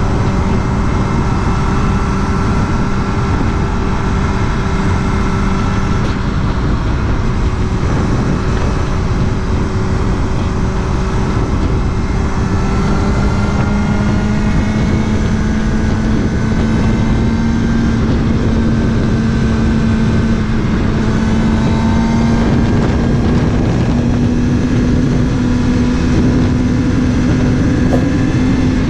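Kawasaki Ninja ZX-6R's inline-four engine running steadily on the move, with heavy wind noise. Its pitch slowly rises from about halfway through.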